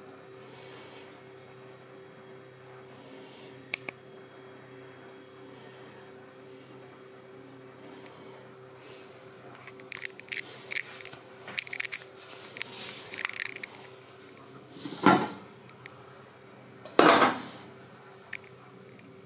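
Kitchen clatter around a stainless-steel cooking pot: scattered light clicks and knocks, then two loud metal clanks about two seconds apart near the end as the pot's glass lid is taken off and put down. A steady low hum runs underneath.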